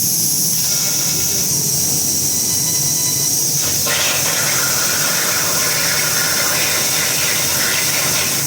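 CNC laser cutting machine working on 22 mm steel plate: a steady high-pitched hiss, joined suddenly about four seconds in by a louder, broader rushing hiss.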